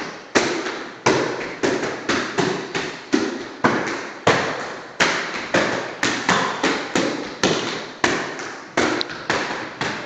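Boxing gloves punching into focus mitts in quick combinations, a sharp smack about two or three times a second, echoing in a bare room.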